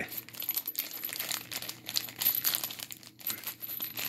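Clear plastic zip bag crinkling in the hand, with the small stainless steel screws and washers inside clinking against each other in an irregular patter.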